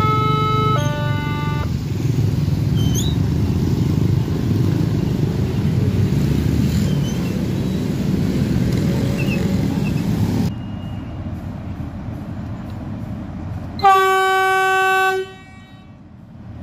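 Level-crossing electronic warning alarm alternating between two tones, stopping about two seconds in, then the steady noise of motorbikes and cars crossing the tracks. Near the end the KA 512 Jenggala train sounds one horn blast of about a second.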